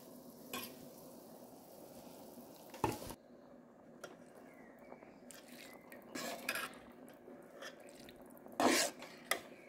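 Rice poured into a steel pot of boiling spiced stock, then stirred with a metal slotted spoon that knocks and clinks against the pot a few times, sharpest near the end.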